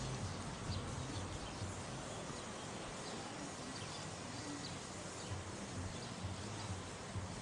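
Steady background hiss with a low hum, and faint, short high chirps scattered through it.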